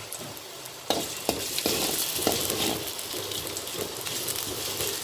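Sliced shallots and garlic sizzling in hot oil in an aluminium wok, sautéed and stirred with a spatula that scrapes against the pan. The sizzling gets louder about a second in.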